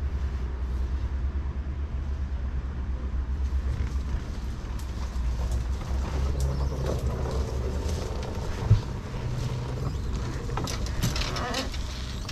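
Mangrove branches and leaves rustling and scraping against the boat as the crew pulls it through by hand, building to a crackling thrash near the end, over a steady low rumble. A single thump comes just before the nine-second mark.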